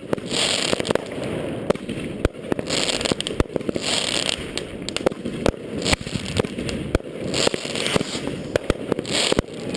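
Fireworks going off: many sharp firecracker bangs at irregular intervals over steady crackling, with several short bursts of hissing.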